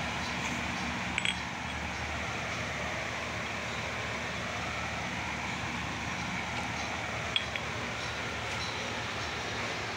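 Metal parts clinking on an engine's flywheel hub as a part is fitted by hand: a quick double clink about a second in and a single sharp clink about seven seconds in, over a steady background rumble and hiss.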